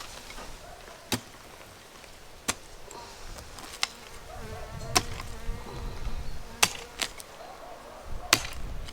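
A hand digging tool striking hard earth, seven sharp strikes spaced a second or so apart.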